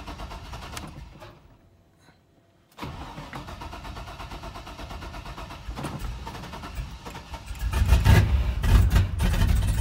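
LQ4 6.0-litre V8 engine in a 1984 Chevy K30 pickup, heard from the cab. It goes quiet for about a second, starts up again suddenly about three seconds in, and runs much louder in the last two seconds. It is running badly, which the owner blames on a failed coolant temperature sensor telling the computer it is minus 40 degrees.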